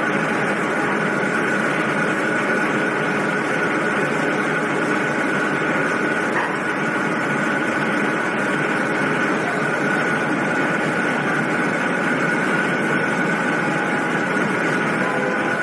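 Steady drone of a car ferry's engines under way, with an unchanging high whine running through it.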